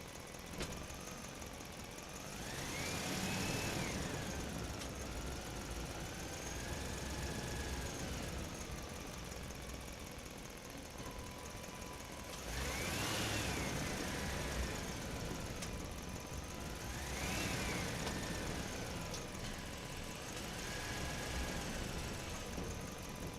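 Radio-controlled truck's motor running, its whine rising and falling in pitch several times as it speeds up and slows down.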